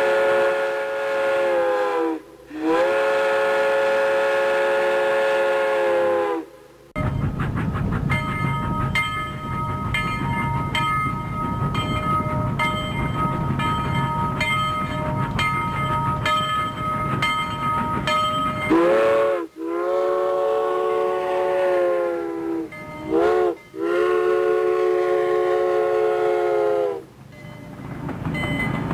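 Steam locomotive whistle blowing long blasts of several notes at once, each sagging in pitch as it cuts off, with the rumble of a running steam train in between. About two-thirds of the way in, the whistle sounds again in a series of blasts, two of them short, before the train noise returns.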